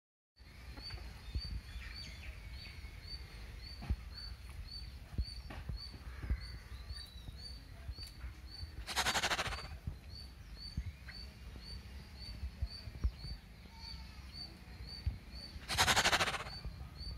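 Two loud, harsh velociraptor shrieks, one about nine seconds in and one near the end, over outdoor ambience. The ambience has birds chirping, a high note repeating about twice a second and a low rumble.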